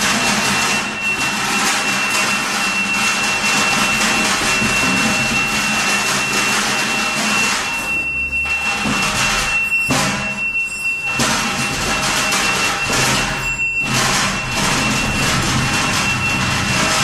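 Improvised noise performance: a dense, steady noisy drone with one high sustained tone over it. It drops out briefly three times in the second half.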